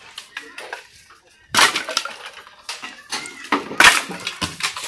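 Dry firewood sticks thrown down from a truck bed, landing on a pile of wood on the ground with several sharp wooden clattering crashes. The loudest land a little after one and a half seconds and near four seconds in.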